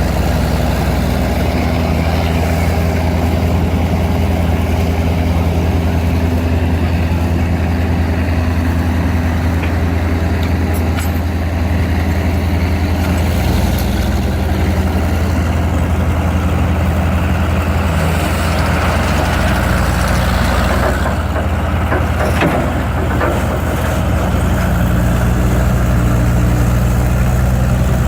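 Heavy diesel engine of an old construction machine running steadily, its pitch shifting about halfway through and again near the end, with a rush of hissing noise over it for several seconds past the middle.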